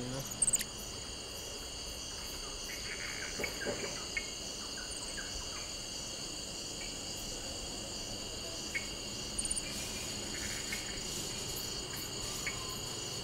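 Steady high-pitched insect chorus, several tones held without a break, with a few faint short chirps over it.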